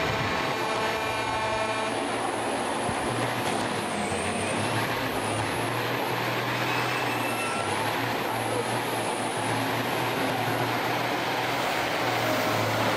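Diesel semi-truck engine running at high revs while the truck's drive tyres spin in a smoky burnout: a steady, loud engine note under a dense hiss of spinning rubber.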